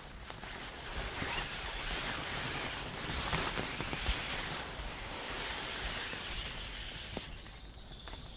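A gust of wind through the forest trees: a rushing hiss that swells about a second in and dies away near the end, with some low wind rumble on the microphone.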